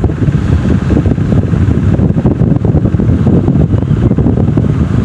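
Loud, steady but uneven low rumble of moving air on the microphone.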